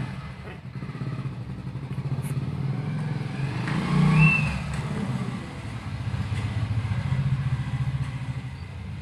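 Puppies growling as they play-fight: a continuous low, rapidly pulsing rumble that swells and eases, loudest about four seconds in.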